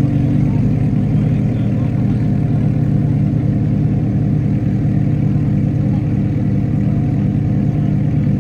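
Lamborghini Huracán V10 idling steadily, a deep, even exhaust note with no revving.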